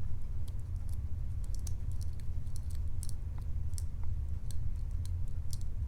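Scattered light clicks and ticks of small metal lockpicking tools being handled at a padlock, over a steady low hum.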